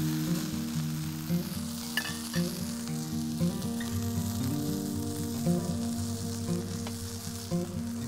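Instrumental background music, a slow melody of held notes over a low bass line. Beneath it runs a steady sizzling hiss of food frying in a pan, with a few light clicks.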